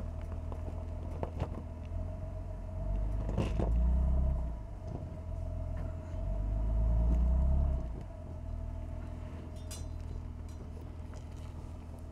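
2022 Toyota Tundra pickup crawling over rocks and a log in low range, a low engine rumble that rises twice as throttle is added, with a few clicks and crackles from stones under the tyres.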